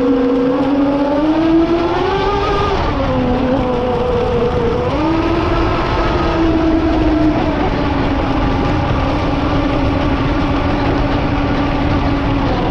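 RC boat's motor whining, its pitch rising and falling a few times with the throttle in the first five seconds and then holding steady, over a steady rush of water and wind on the bow-mounted camera.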